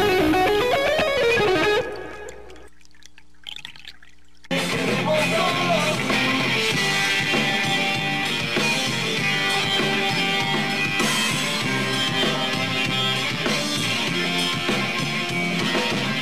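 A short musical sting with gliding tones, which dies down after about two seconds to a quieter stretch. At about four and a half seconds a rock band starts playing live, with electric guitars, and keeps going at a steady level.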